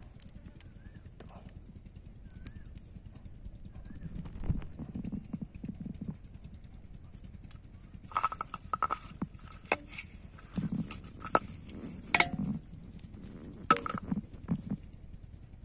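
Close handling noise of hands working snails and a small fishing hook: scattered low thumps, then from about halfway a run of sharp clicks and knocks.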